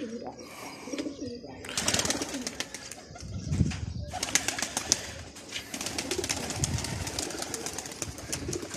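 Domestic pigeons cooing, with deep coos swelling up a couple of times, over a steady patter of small clicks and scratches from the flock pecking and stepping on sandy ground.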